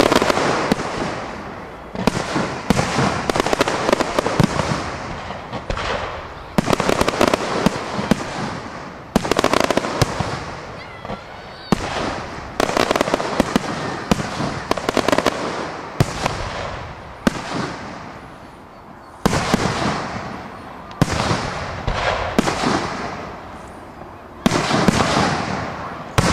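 Aerial firework shells bursting one after another, a fresh bang every two to four seconds, each trailing off in a fading crackle.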